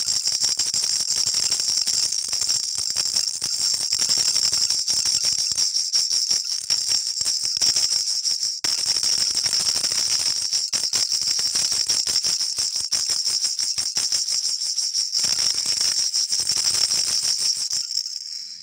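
A baby rattle (jhunjhunu) shaken rapidly and continuously, giving a dense, high-pitched rattling jingle, with a very short break about halfway through.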